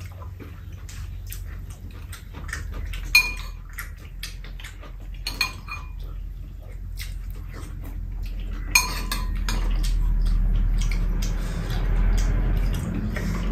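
Metal spoons and chopsticks clinking and scraping against ceramic bowls during a meal, with a few sharp clinks about three, five and nine seconds in. A low hum grows louder in the second half.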